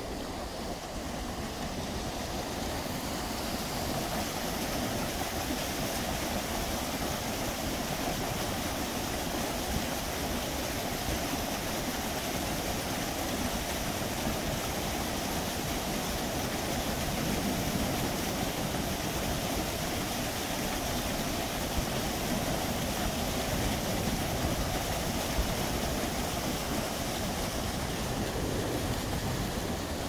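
Park fountain: rows of water jets arching and splashing into a long shallow basin, a steady rushing splash that grows louder over the first few seconds.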